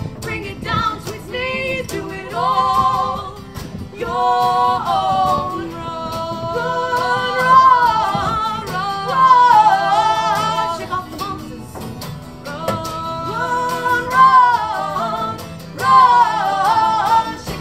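Live music: female voices singing long, wordless notes that bend and waver in pitch, the song's closing vocal passage.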